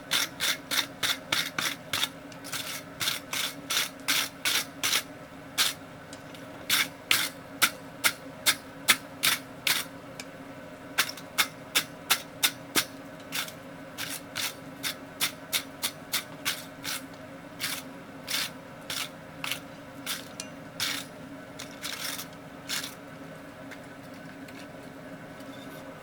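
Wire brush scrubbing a freshly forged steel door handle at a low heat, in quick strokes about two or three a second with short pauses, stopping about three seconds before the end.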